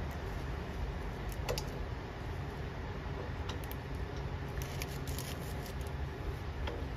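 A few light, sharp metal clicks and taps as the steel chipper chute and a welding clamp are handled, with a small cluster near the middle, over a steady low background rumble.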